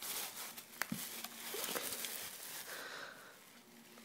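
Packaging rustling, with a few sharp clicks and light knocks as a new alternator is handled out of its box.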